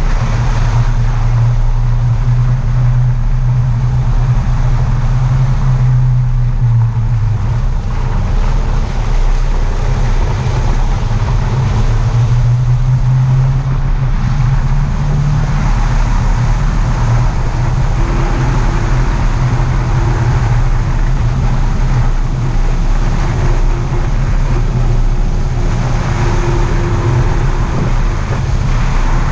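Land Rover Discovery 3 driving along a rough lane: a steady low engine drone with tyre and wind noise.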